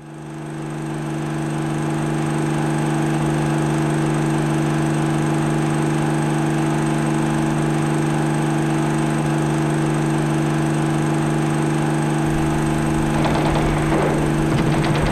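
Steady machine hum with several held low tones and a hiss above them, fading in over about two seconds. Crackling and clicking join it from about thirteen seconds in.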